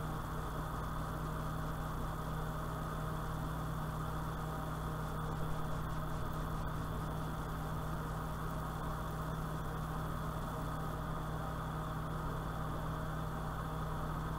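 A steady low hum with a faint high-pitched whine above it, unchanging throughout.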